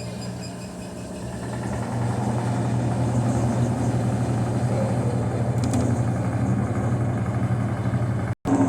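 Electrolux LT11F washing machine's drain pump running with a hoarse, rough hum that grows louder about two seconds in. This is the noise of a faulty drain pump, a 'bomba rouca' (hoarse pump). The sound cuts out for an instant near the end.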